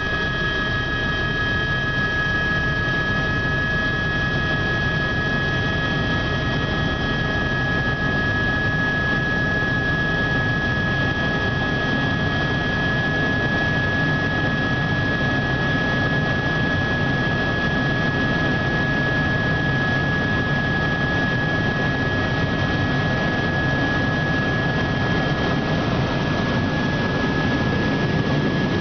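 Helicopter in flight, heard from inside its cabin: a steady engine and rotor drone with a constant high whine on top.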